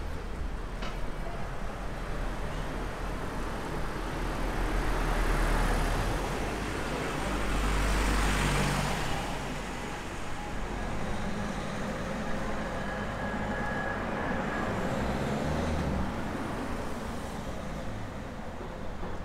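Motor vehicles passing on a street, the noise swelling twice, about five and eight seconds in, then settling.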